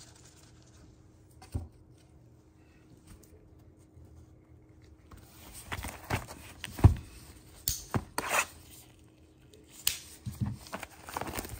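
Handling of cardboard trading-card boxes by gloved hands: after a few quiet seconds with one small click, boxes are picked up and set down with knocks and scrapes, mixed with crinkling of plastic wrap.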